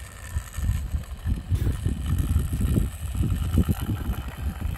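Wind buffeting the microphone: an uneven low rumble that swells and fades.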